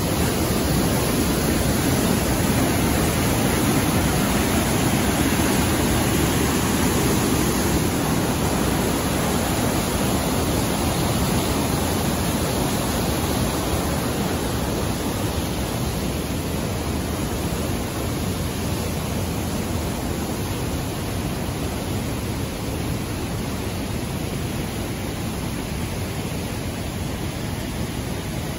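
Flood-swollen mountain creek rushing as white water through a narrow rock gorge: a loud, steady roar that eases slightly in the second half.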